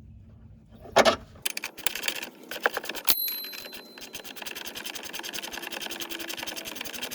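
Impact wrench hammering in rapid steady rapping, running down a shock absorber mount bolt, after a loud knock about a second in.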